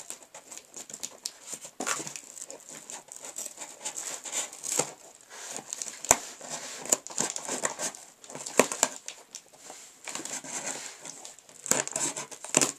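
Scissors cutting and scraping through thick layers of packing tape on a cardboard box, with irregular crinkling, rasping and tearing, and a sharp click about six seconds in.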